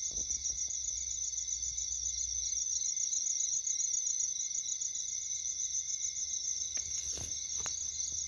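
Night insects, crickets among them, trilling steadily in a high-pitched chorus. A few faint clicks come about seven seconds in.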